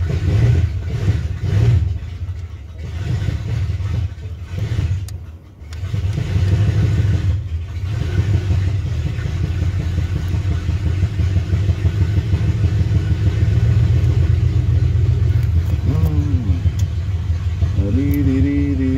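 A car engine running steadily with a low rumble. Its pitch swings up and down briefly about sixteen seconds in and again near the end.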